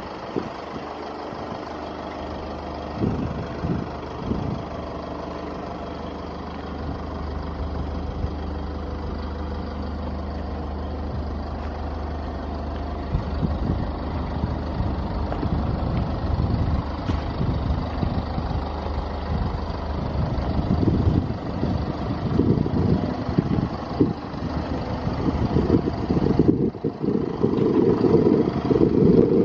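A vehicle engine idling with a steady low hum, with wind buffeting the microphone in gusts that grow stronger toward the end.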